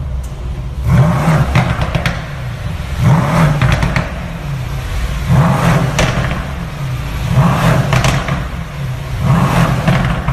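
Mercedes-AMG C 63 S coupe's twin-turbo V8 idling and being revved in five short blips, about one every two seconds, through its performance exhaust in an underground garage.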